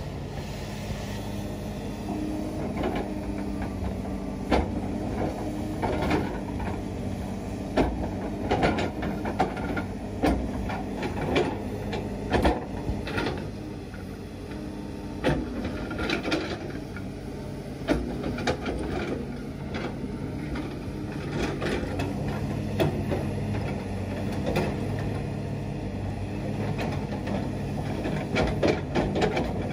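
Komatsu PC350LC hydraulic excavator's diesel engine running steadily as the bucket digs into a pit face, with frequent irregular clanks and knocks of rock and soil against the steel bucket.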